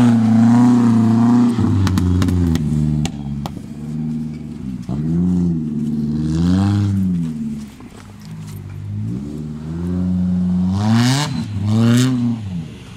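Supercharged 1.6-litre 16-valve Suzuki Vitara engine in a trial-prepared Jimny, revving up and down in repeated throttle bursts as it works through mud. A few sharp clicks come about two to three seconds in, and two hard revs come near the end.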